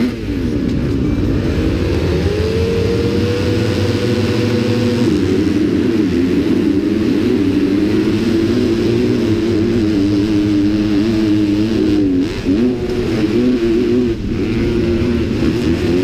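250cc four-stroke motocross bike engine heard close up, revved and held at high revs on the starting gate, then launching and accelerating hard up through the gears, the pitch climbing and dropping at each shift.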